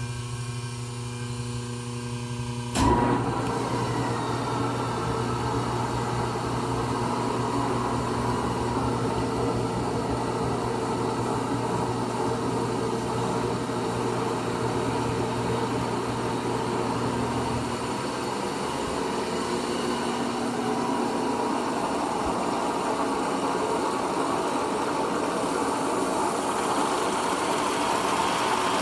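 Steady electrical hum, then about three seconds in a clunk as the Pratt and Whitney lathe's gear head starts up, after which it runs steadily with a whirring gear whine, its headstock filled with diesel for flushing.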